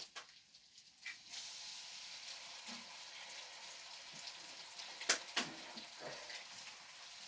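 Eggs sizzling in hot fat in a frying pan: a steady hiss that starts suddenly about a second in. There are two sharp clicks a little after five seconds in.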